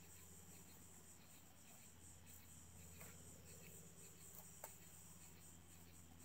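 Near silence: faint, steady chirring of crickets with a low hum beneath, and a couple of faint clicks midway.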